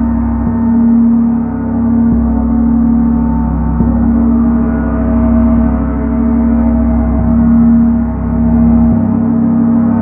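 Ambient drone soundtrack of sustained gong tones held over a steady low hum, with no distinct strikes; the low layer shifts every second or two.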